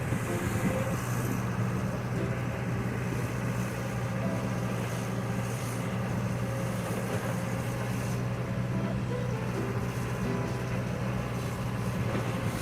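Diesel engine of an excavator running steadily at an even pitch.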